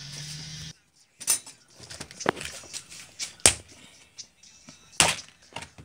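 A steady hum that cuts off abruptly less than a second in, then scattered sharp clicks and knocks of things being handled on a workbench. A clear plastic organizer case of metal bolts is set down among saw blades and pipes; the sharpest knock comes about three and a half seconds in.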